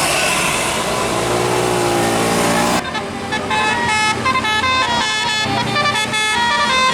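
Bus musical air horn (telolet horn) playing a quick melody of short stepped notes, jumping from pitch to pitch. It comes in suddenly about three seconds in, after a loud noisy stretch.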